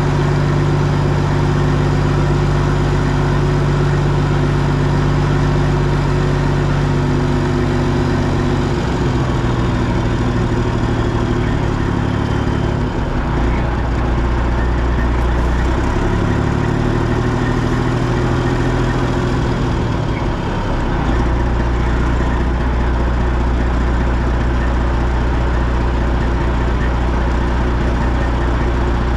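Semi truck's diesel engine running steadily. Its pitch drops about a third of the way in, changes a few more times, and then settles at a lower, steady note as the engine speed changes.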